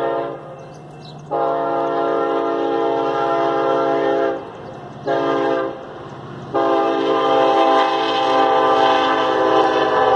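Union Pacific freight locomotive's air horn sounding the grade-crossing signal: the end of one blast, then a long blast, a short one, and a long one held to the end. A low steady rumble from the train runs underneath.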